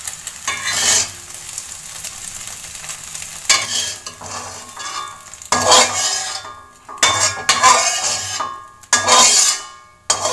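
Flat spatula stirring and scraping scrambled egg in a hot metal wok, with a light sizzle. From about three and a half seconds in it turns to a run of separate scrapes of the spatula across the wok's metal as the egg is scooped out.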